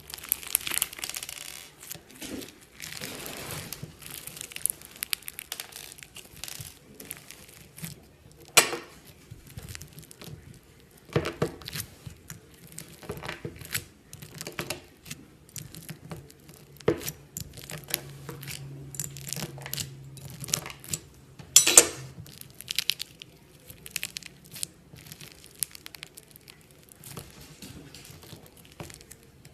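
Slime mixed with Orbeez water beads being squeezed and pressed by hand, giving a busy run of irregular crackles and pops. There are louder single pops about 8 seconds and 22 seconds in.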